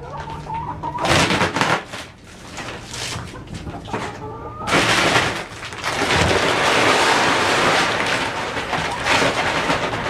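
A paper feed bag is handled and rustled, then chicken layer feed is poured into a plastic trash can from about five seconds in, a steady rushing pour that lasts to the end.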